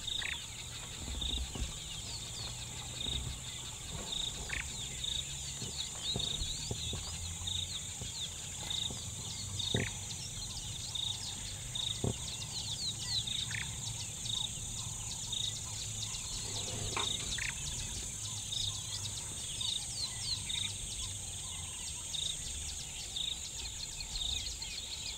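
A bird repeating a short, high beep over and over at a steady pace, about three every two seconds, over a steady high insect buzz.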